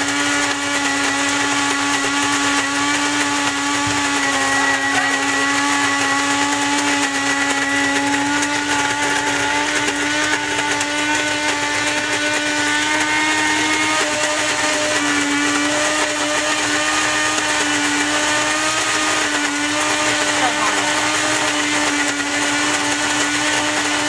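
Electric coffee grinder running steadily as it grinds coffee beans on a fine setting: a constant motor hum over a grinding hiss.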